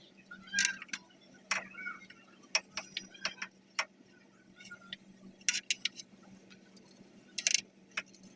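Scattered metallic clicks and taps, about ten at uneven intervals, from tools and parts being handled during a car transmission oil change, over a faint steady hum.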